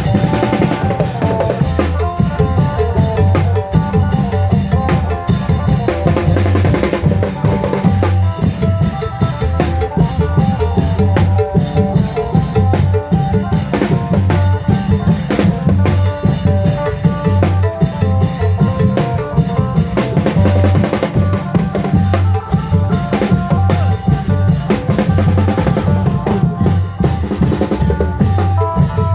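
Klong yao (Thai long drums) and percussion playing live Isan music: a dense, steady drum rhythm with a melody line above it.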